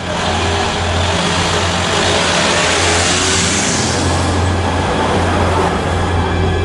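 A car driving up, its engine and tyre noise swelling to a peak about halfway through and then easing off, over a low steady hum.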